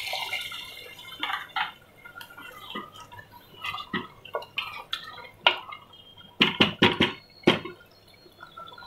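Wooden spoon stirring wet minced meat and peas in a metal pressure cooker, with irregular clicks and knocks as it strikes the pot's side, and a quick run of sharper knocks about six and a half to seven and a half seconds in.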